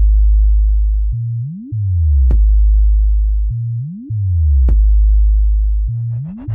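Synthesized sub-bass test pattern for a speaker sound check: a short rising sweep, then a very deep sustained bass note that falls in steps, punctuated by a sharp click, repeating about every two and a half seconds.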